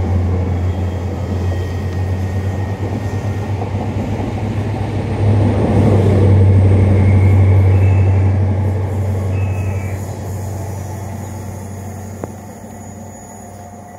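A diesel High Speed Train (InterCity 125) passing below with a low engine hum and rumbling wheels on the rails. It grows louder about five seconds in, then fades steadily as the train runs away along the line.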